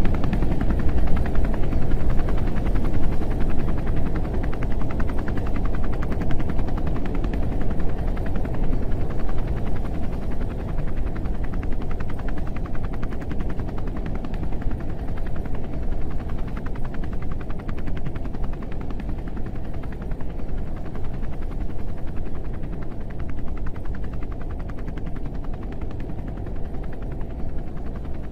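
Dense low rumble with a fast rattling flutter in it, loudest at the start and slowly fading.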